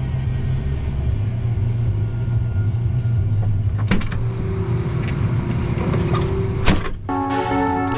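John Deere S660 combine running with a steady deep engine drone, with a sharp click about four seconds in and another just before seven seconds. Just after seven seconds the drone gives way to piano-like background music.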